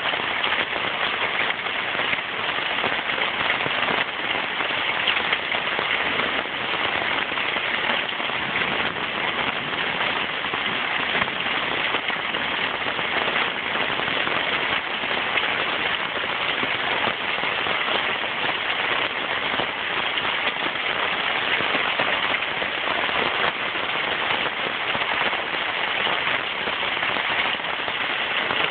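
Heavy rain falling in a steady downpour: a dense, even hiss made of countless drop hits.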